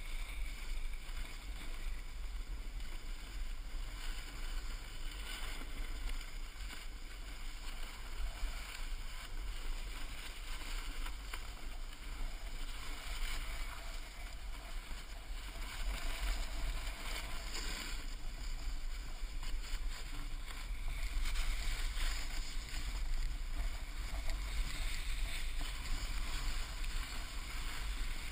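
Snowboard sliding and carving over packed snow, a steady scraping hiss, with low wind rumble buffeting the microphone. It grows somewhat louder in the second half.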